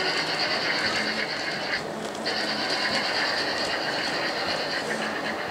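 Gauge 1 model train running on the layout: a steady high whine that breaks off for about half a second roughly two seconds in, with mechanical rattle from the running gear over a constant background noise.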